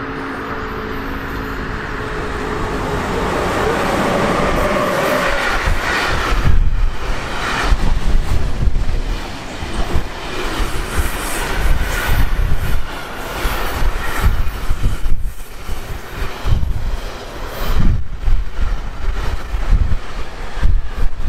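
Intermodal freight train of tank-container and trailer wagons approaching and passing close by. The rolling noise grows over the first five seconds or so. Then the wagons go by with a loud, uneven rumble of wheels on the rails that surges again and again.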